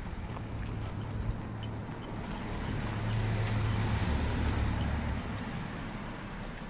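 An SUV drives past close by and on ahead, its engine hum and tyre noise swelling to a peak about halfway through, then fading as it pulls away.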